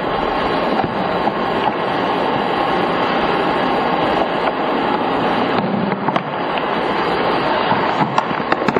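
Steady rushing noise of wind on a camcorder microphone, from the soundtrack of outdoor night-time footage, with a few small clicks near the end.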